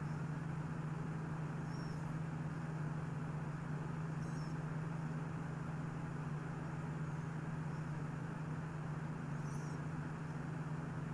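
A steady low hum with background noise, broken three times by a brief high chirp.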